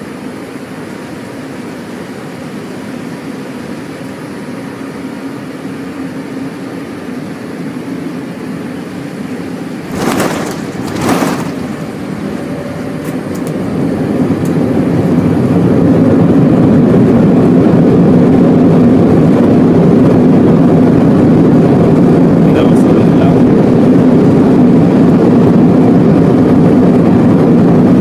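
Airliner cabin noise during landing. There is a steady rush of air and engine noise, then two thumps about ten and eleven seconds in as the wheels touch down. A few seconds later the noise rises and stays loud as the engines go into reverse thrust for the landing roll.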